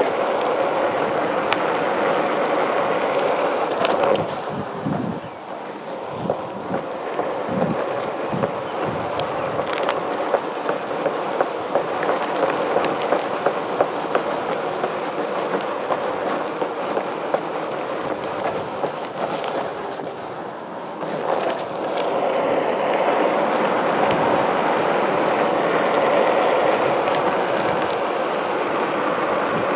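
Onewheel Pint electric board's single wide tyre rolling over pavement: a steady rolling roar with a run of regular ticks around the middle. It eases off briefly about a fifth of the way in and again about two-thirds in, then is louder.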